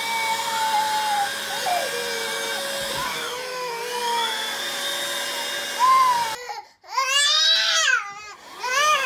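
Vacuum cleaner running with a steady whine while a small child cries in fear of it. The crying rises to loud wails about two-thirds of the way through, broken by a sharp catch of breath.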